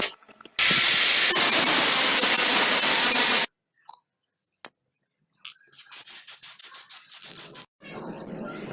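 MIG welding arc burning in a loud, steady hiss for about three seconds, then stopping. After a pause, a shorter crackling burst of welding follows, and a fainter hiss comes near the end.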